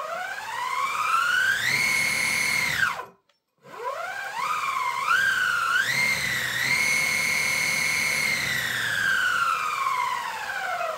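Outrunner brushless motor of a belt-driven mid-drive spinning a scooter's rear wheel in the air on a 13S battery: a whine rises to a steady top pitch, cuts off suddenly about three seconds in, then climbs again in stepped surges of throttle, holds at top speed and falls away slowly over the last few seconds as the wheel spins down.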